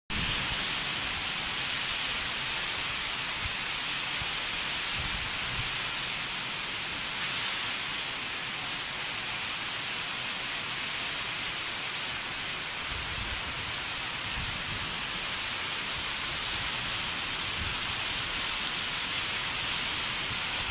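Rain falling steadily, an unbroken hiss.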